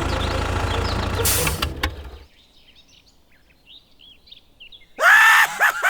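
A small engine runs steadily with a fast low pulse, then stops about two seconds in. Birds chirp faintly in the quiet that follows. Near the end a loud, pitched, voice-like cry sets in.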